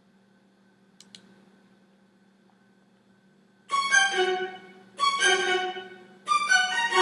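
Suspense sound effect of dramatic bowed-string stabs, each struck hard and fading, about one every 1.3 seconds, starting a little past halfway. Before it, near quiet with two faint clicks.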